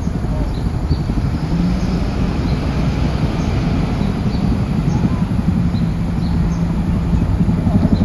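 Tandem-rotor CH-47 Chinook helicopter flying past, its rotors beating in a rapid low pulse over a steady drone. Short faint bird chirps come through at intervals.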